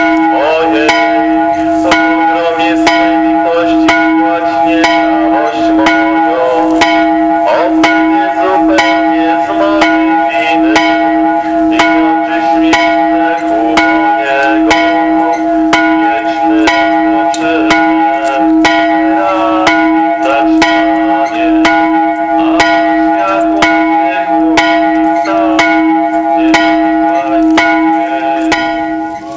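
Church bell tolling for a funeral procession, struck about twice a second, with a steady ringing hum sustained between the strokes.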